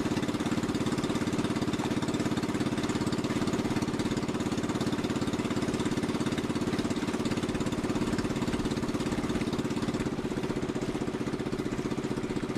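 Small motorboat engine running steadily at an even speed, a fast, regular chug, dropping slightly in level near the end.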